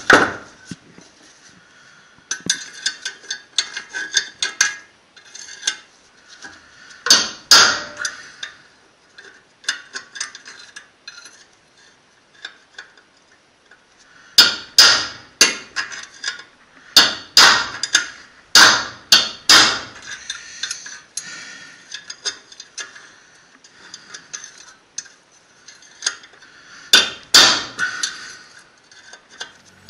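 Hammer blows on a metal drift, knocking a wheel-bearing race out of an aluminium hub carrier on a Jaguar XJ rear axle. The blows come in irregular runs, each with a metallic ring; the heaviest run is near the middle.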